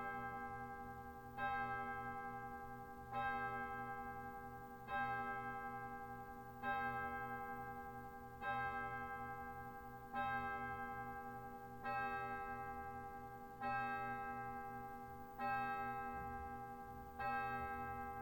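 A single bell tolling one note over and over, a stroke about every second and three-quarters, each one ringing on and fading before the next.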